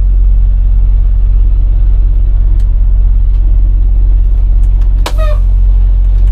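Semi truck's diesel engine idling steadily, a loud low hum heard from the cab. A sharp click cuts in about five seconds in.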